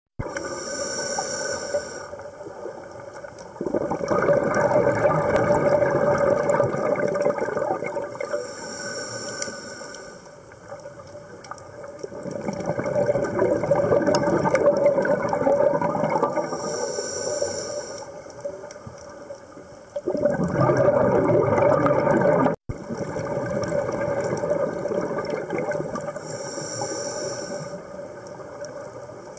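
Scuba regulator breathing underwater: a short hissing inhale about every eight seconds, each followed by a long, loud rush of exhaled bubbles.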